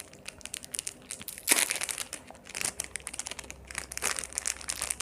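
Small jewellery packaging crinkling as a ring is handled and unwrapped, a run of quick crackles with a louder rustle about a second and a half in.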